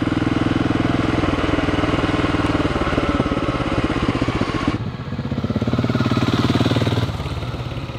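A 2008 BMW G650 Xchallenge's 650 cc single-cylinder engine running at low revs through an IXIL Hexoval Xtrem Evolution slip-on exhaust with the baffle in, under light throttle at slow riding speed. Its note changes abruptly about five seconds in, swells briefly, then eases off near the end.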